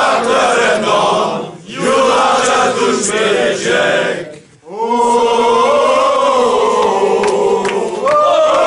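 Crowd of men, Liverpool fans, singing a Turkish song together in unison. It comes in three phrases with short breath gaps between them; the last is a long held note that steps up in pitch near the end.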